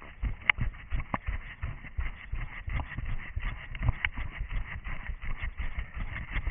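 Running footsteps of an orienteer at a steady stride, thudding about three times a second, over a steady hiss.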